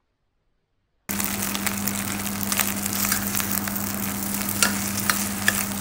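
Fried rice with egg, garlic and sausage sizzling in a pan as it is stirred, with frequent clicks of the utensil on the pan over a steady hum. It starts abruptly about a second in, after near silence.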